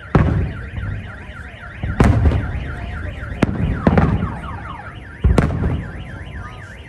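Firework shells bursting with about five sharp booms, each trailing off in a rumble. Under them a car alarm wails, its tone swinging up and down about three times a second.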